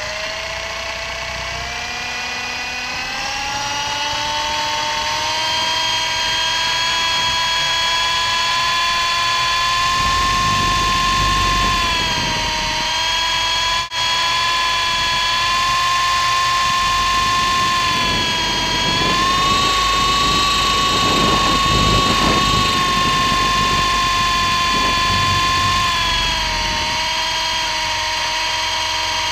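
MJX F45 RC helicopter's electric motor and rotor whining, recorded from a camera strapped to its frame. The pitch climbs over the first few seconds as it spools up and lifts off, then holds steady in flight. Low rumbles of wind on the microphone come and go in the middle.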